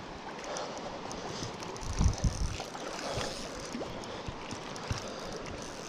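River water running steadily, with low bumps of wind buffeting the microphone about two seconds in.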